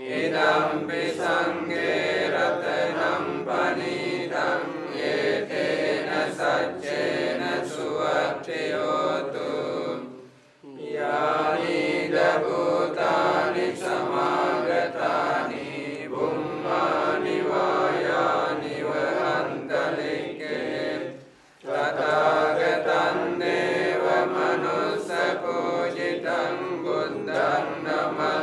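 Sri Lankan Buddhist monks chanting Pali paritta verses in unison, a steady recitation that breaks off twice for a brief breath, about ten seconds in and again about two-thirds of the way through.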